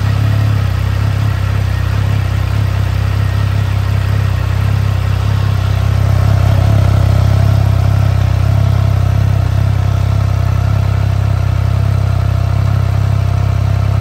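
Triumph Trident motorcycle's three-cylinder engine idling steadily on its stock exhaust, just after being started.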